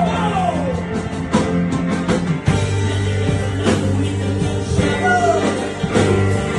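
Rock band playing a slow song, with a singer's voice gliding down in the first second and a short sung phrase about five seconds in.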